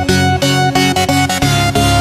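Electronic background music with a steady, quick beat; a heavy bass line comes in about one and a half seconds in.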